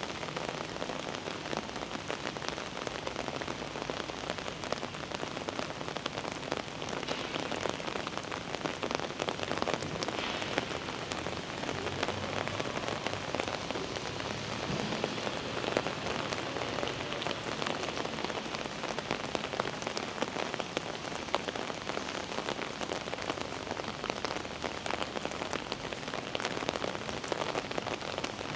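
Heavy rain falling on a city street: a steady, dense patter of drops that goes on without a break.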